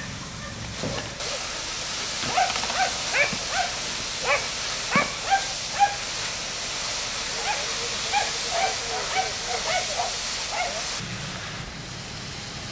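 Steady hissing of water and steam on a burning fire, which starts about a second in and stops shortly before the end. Over it, a dog barks and yelps in short sharp calls, two or three a second.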